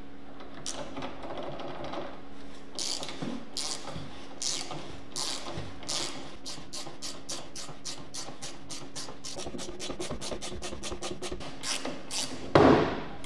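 Socket ratchet on an extension clicking as it unscrews the axle nut of a drift trike's rear wheel. Scattered clicks at first, then a quick, even run of about four clicks a second, ending in a short, louder scrape near the end.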